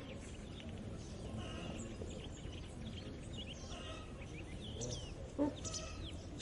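Early-morning farmland ambience: several birds chirping and calling over a steady low rumble, with one call pattern repeating about every two seconds. A short, louder animal call sounds about five seconds in.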